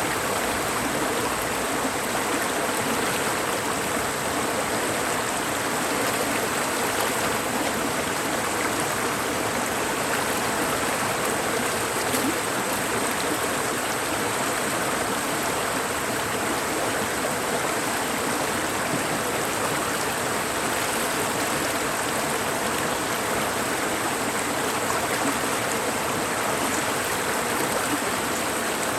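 Mountain valley stream flowing steadily.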